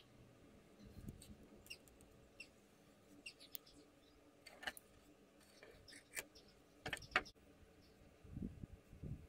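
Faint handling sounds of yarn and thin wooden sticks being tied with a knot: scattered small rustles, scratches and clicks, with a couple of soft knocks on the wooden tabletop near the end.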